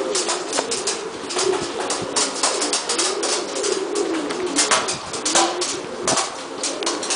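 Buchón Gaditano pouter pigeons cooing over and over in low, wavering coos. Many short sharp taps sound over the coos.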